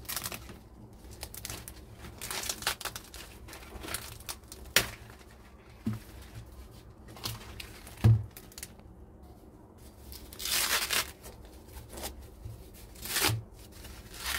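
Green husks being torn and peeled by hand from ears of fresh sweet corn: irregular tearing and rustling. There are a few sharp knocks, the loudest about eight seconds in.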